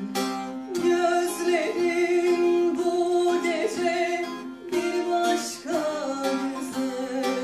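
Bağlama (long-necked Turkish saz) strummed and plucked, with a woman singing a sustained, ornamented melody over it.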